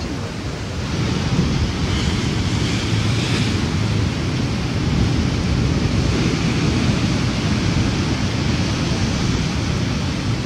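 Steady wind rumbling on the microphone over the wash of the sea against a rocky shore.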